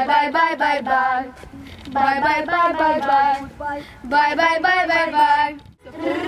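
Children singing a vocal warm-up exercise: three quick runs of short sung notes, each about a second and a half long, with short breaks between them.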